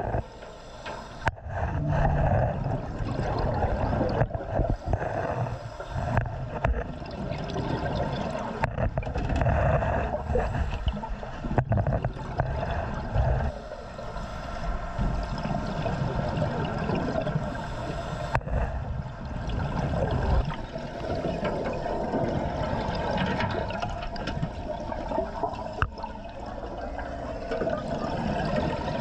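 Sloshing and gurgling of water as heard by a camera underwater or at the waterline, muffled and strongest in the low end. It breaks off abruptly several times and carries straight on.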